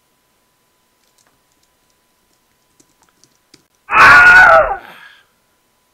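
A few light computer-keyboard taps, then a loud, short wordless vocal sound from a man, under a second long and falling in pitch.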